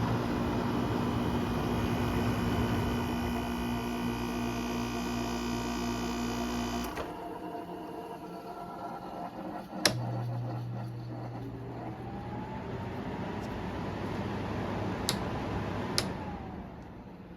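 2012 Frigidaire 5,000 BTU window air conditioner running with a steady hum, then shutting off abruptly about seven seconds in. A sharp click follows about ten seconds in, with a lower hum after it, and two more clicks come near the end.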